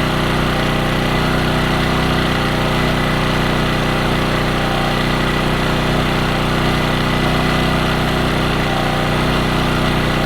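Brand-new Champion 1400-watt portable generator's small single-cylinder four-stroke engine running at a steady speed with no load, on its first run during break-in.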